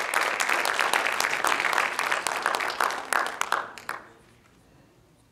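Audience clapping its hands, many people at once in a dense patter that dies away about four seconds in.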